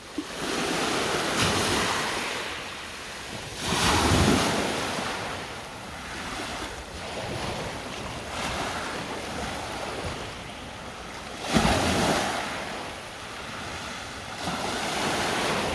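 Lake waves breaking and washing ashore, surging louder about four seconds in and again near twelve seconds, with wind buffeting the microphone.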